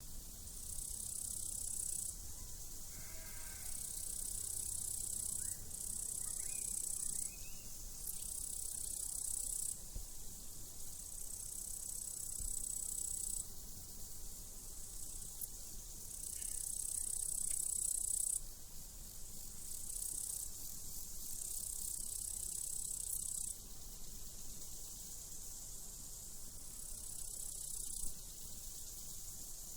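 Crickets chirping in long high trills that start and stop every few seconds, with a sheep bleating faintly a few times in the first several seconds.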